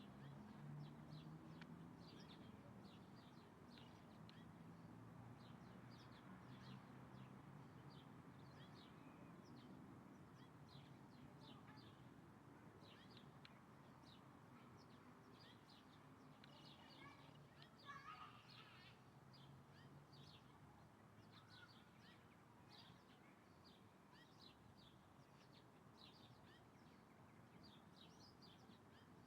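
Small birds chirping, many short high-pitched chirps repeating throughout, with a lower, louder call about eighteen seconds in, over a faint low hum.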